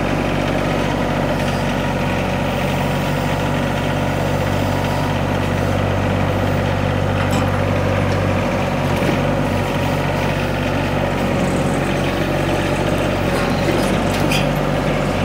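Diesel engine of a Kymron XH26D 3-ton mini excavator running steadily while the machine digs, with the boom and bucket being worked.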